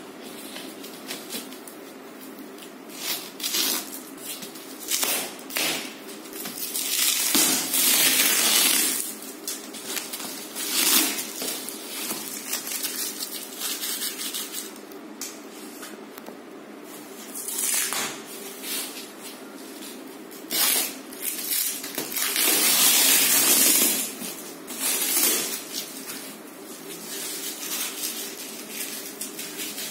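Wrapping on a rolled-up mattress rustling and crinkling in irregular bursts as hands press and handle it, with two longer, louder stretches about a third of the way in and again past two-thirds of the way.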